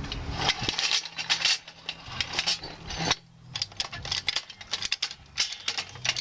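Rapid light clicks and clinks of small hard objects being handled, with a faint low hum underneath.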